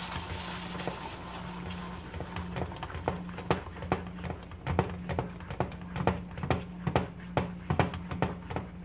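A metal spoon stirring cream into a thick brigadeiro mixture in a saucepan, clinking and scraping against the pan. The clicks come quicker and sharper from about two seconds in, about three or four a second.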